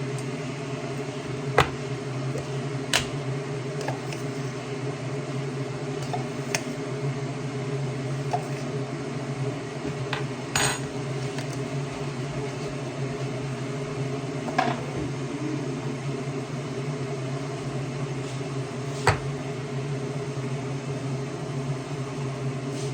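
Crockery and utensils handled in a kitchen: a handful of sharp clinks and knocks spaced several seconds apart, over a steady appliance hum.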